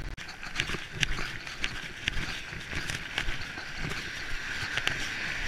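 Steady rain hissing down on pavement, with scattered sharp taps and knocks close to the microphone at irregular intervals.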